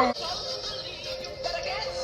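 Film song playing: a loud held sung note breaks off at the start, and quieter musical accompaniment follows.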